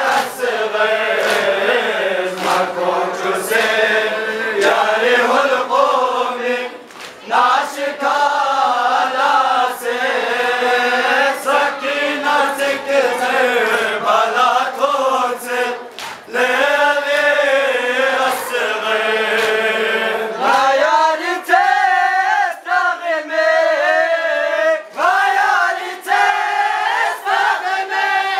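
A group of young male voices chanting a noha, a Muharram mourning lament, in unison into a microphone, the melody rising and falling in long phrases. Faint regular slaps of chest-beating (matam) run under the singing.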